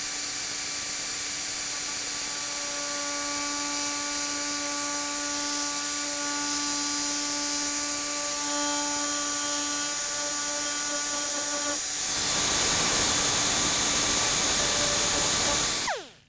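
Handheld rotary tool with a pointed burr cutting a V-groove into a plastic headlight tab: a steady high whine with hiss, louder and rougher from about twelve seconds in. It stops just before the end, its pitch falling as the bit spins down.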